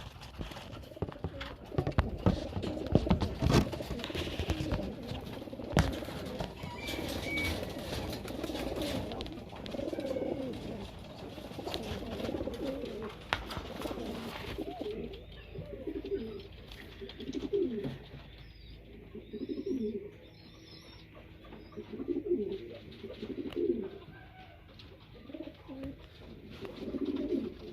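Young racing pigeons cooing repeatedly, a low call about every second or two. Sharp knocks and clattering sound during the first few seconds.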